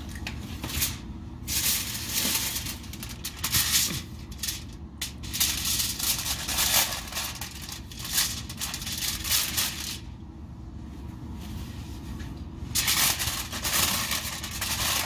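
Aluminium foil crinkling and rustling in irregular bursts as hands fold and crimp it into a cooking packet, with a quieter stretch about two-thirds of the way through.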